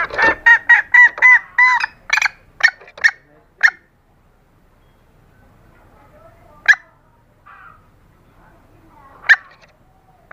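Junglefowl hen calls played as a lure: a fast string of about ten short clucking calls, several with a ringing pitched note, over the first two seconds. A few sharp single clucks follow, then two more isolated clucks spaced several seconds apart.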